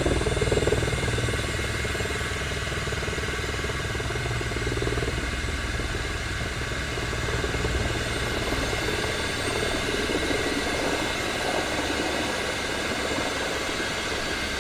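Helicopter turbine and rotor running steadily, heard from inside the cabin, with the rapid beat of the rotor blades under it.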